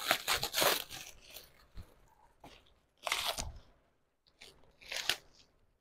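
Clear plastic wrapping being torn and crinkled off a perfume box by hand, in a cluster of rustles over the first second and two more bursts about three and five seconds in.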